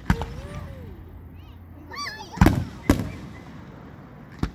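Aerial fireworks bursting overhead: four loud, sharp bangs, one at the start, two about half a second apart in the middle, and one near the end, each trailing off in an echo.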